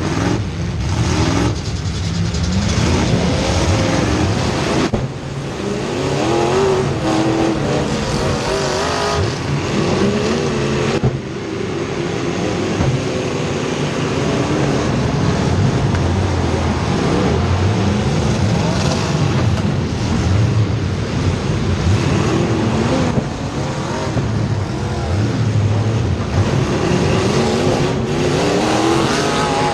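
Race car engines running hard in a race, several at once, their pitch rising and falling as the cars accelerate down the straights and lift for the turns.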